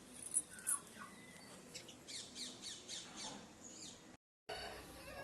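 Birds chirping: two sharp high chirps, then a run of about seven quick calls that each fall in pitch. The sound drops out for a moment about four seconds in.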